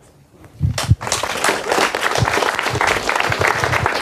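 An audience breaks into applause about a second in, a dense, even clapping that keeps going.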